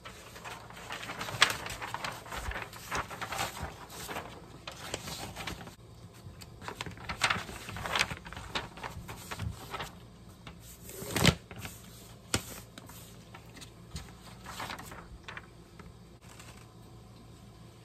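Paper rustling and scraping as a large sheet of paper and a paper-covered board are moved and pressed flat on a paper-covered table, with scattered taps throughout. The loudest sound is a sharp knock a little past the middle.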